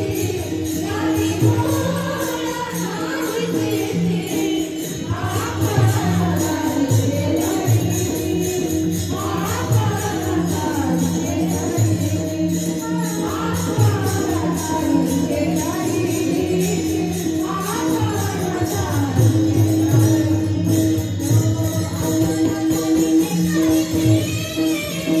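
Marathi Varkari kirtan music: voices singing a devotional melody over sustained drone-like notes, with a fast, even jingling rhythm of small hand cymbals (taal) throughout.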